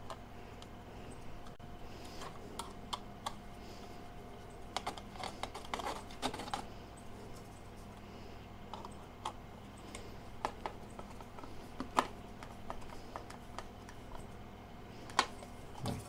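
Scattered light clicks and taps of sheet metal as a switching power supply's fan cover is handled and fitted onto its housing. A faint steady hum runs underneath.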